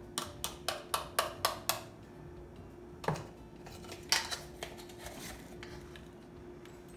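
A spoon tapping against a container while baking powder is measured out: a quick even run of light clicks, about four a second, then a few scattered taps, over a faint steady hum.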